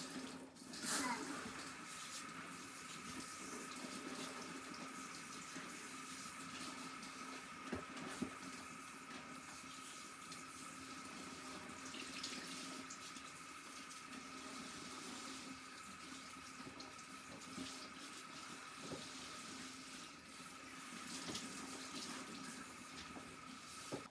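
Water spraying steadily from a handheld shower sprayer onto a dog's coat, with a faint steady whine in the flow. It starts about a second in and cuts off right at the end.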